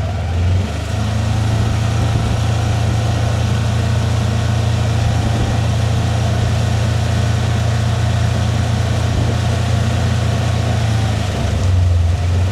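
Vehicle engine running steadily with a constant low hum, swelling slightly near the end.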